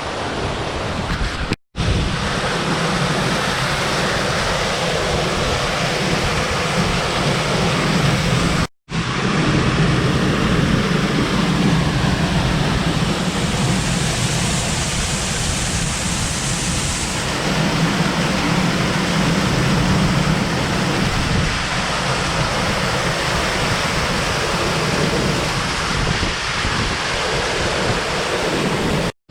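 Steady roar of a large waterfall's falling water, with wind buffeting the microphone, broken by two brief dropouts.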